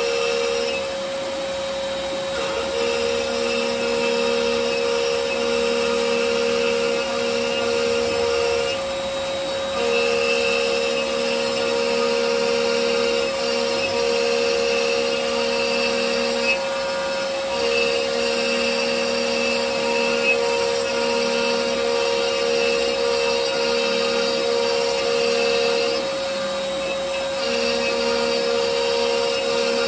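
A CNC router spindle runs with a steady whine while its bit cuts maze channels into a wooden board, under a dust-collection shoe drawing air through its hose. The cutting noise comes and goes as the bit moves along its passes, dropping out briefly about every eight seconds.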